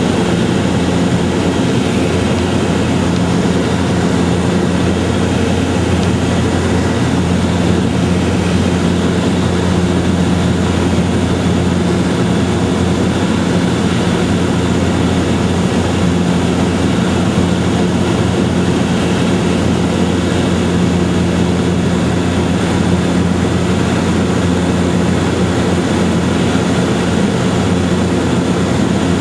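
Steady, loud mechanical drone with a constant low hum, unchanging throughout.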